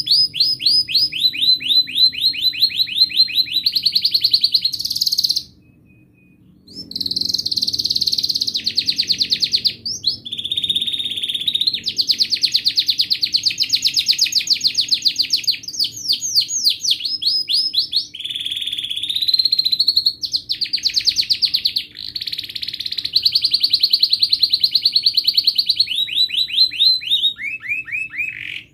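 White domestic canary in full song: a long, continuous run of rapid trills and rolls, each phrase of fast repeated notes giving way to the next every second or two, with a short break about five seconds in.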